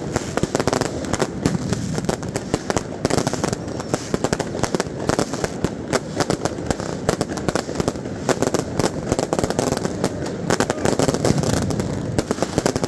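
Fireworks going off without a break: a dense, rapid string of firecracker bangs and crackle, many cracks a second.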